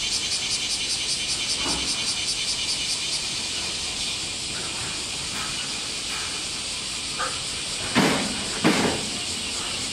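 Insects shrilling in a fast, even pulse, typical of summer cicadas, which fades after about three seconds and leaves a steady outdoor hiss. About eight seconds in, two short, loud noises come less than a second apart.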